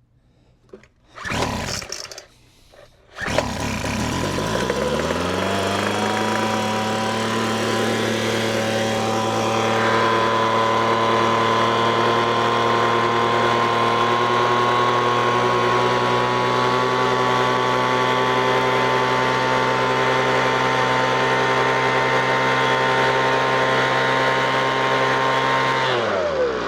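Weed Eater FB25 25cc two-stroke leaf blower being pull-started. A first pull about a second in, then on the next pull the engine catches, revs up, and settles into a steady run. Near the end it winds down and stops.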